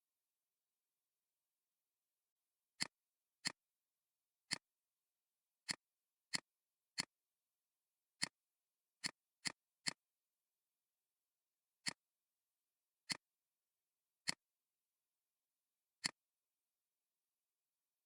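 Computer mouse clicking, about fourteen short, sharp clicks at irregular intervals, with total silence between them.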